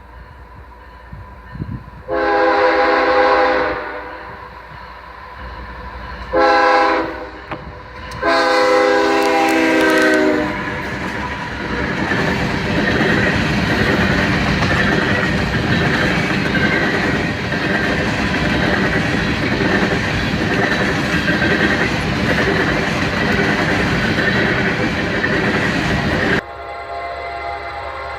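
Locomotive horn sounding three blasts, long, short, then long, followed by the train passing close by: a steady loud rush of wheels on rail with rattling cars. Near the end the sound cuts to a fainter horn blowing at a distance.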